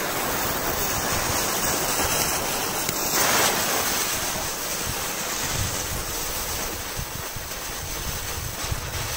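Several ring-shaped ground spinner fireworks spraying sparks, making a steady rushing hiss. The hiss starts suddenly and swells briefly about three seconds in.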